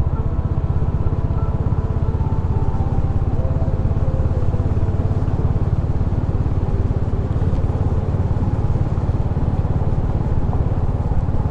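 Royal Enfield Himalayan's single-cylinder engine running steadily as the motorcycle rides along. It has a rapid, even pulsing low note, heard from the rider's seat.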